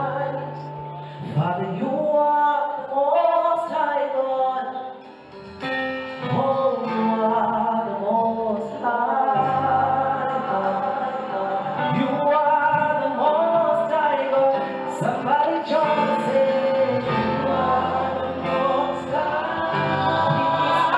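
Gospel music: a group of voices singing together over instrumental backing with a low bass line.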